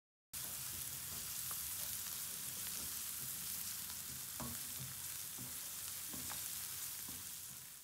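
Chopped garlic, onion and crushed dried red chilli sizzling in hot oil in a nonstick frying pan, frying for a dal tempering, with a wooden spatula stirring and scraping and tapping the pan now and then. The steady sizzle cuts in abruptly a moment in and fades away at the very end.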